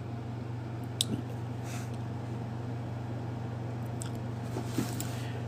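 Faint handling noises: a sharp click about a second in and a few soft rustles later, over a steady low hum.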